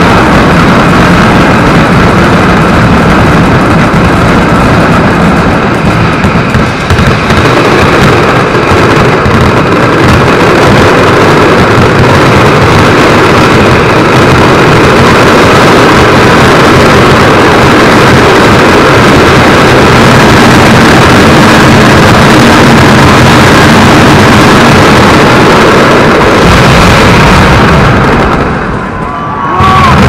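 Mascletà firecrackers going off in a dense, unbroken barrage, the bangs blending into one continuous, very loud din: the closing 'terremoto' of the show. It drops briefly near the end, then comes back loud.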